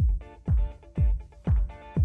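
Background music with a steady beat of about two deep kick-drum thumps a second under chords, in a sparser passage that begins just after a brief break.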